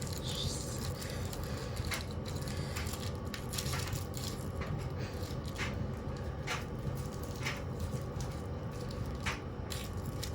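Washing machine running, a steady motor hum with irregular sharp knocks and rattles from the machine being deliberately run to destruction.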